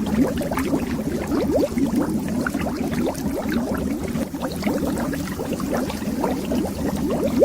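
Underwater bubbles, a dense continuous stream of short rising bloops over a low rumble.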